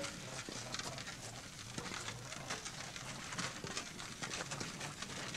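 Irregular crunching and rattling of a wooden cart carrying a sculpture as it is pushed on foot across gravel, with many small clicks and crackles.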